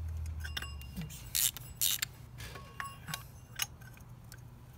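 Sharp metallic clinks of a steel oil-filter cap wrench and its handle knocking on the oil filter as it is fitted and turned, about eight irregular clicks, each with a short ring. The wrench is a few millimetres too big for the filter. A low hum fades out during the first second.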